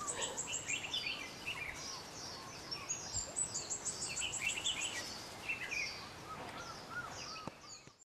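Birds singing: a fast run of short, high, falling notes comes twice, about three seconds apart, among other scattered chirps. The sound cuts off just before the end.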